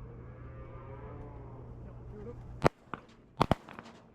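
Shotgun shots at pigeons: one loud shot about two and a half seconds in, then two more in quick succession about a second later, with a fainter report between them.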